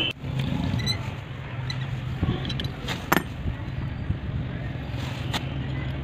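Metal tool clicks and clinks as a flaring tool's yoke and bar are handled on a copper pipe, a few sharp ones, the loudest about three seconds in, over a steady low hum of traffic or an engine in the background.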